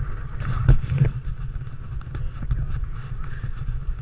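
Wind buffeting a skydiver's helmet camera microphone: a steady rumble with a couple of sharp knocks about a second in.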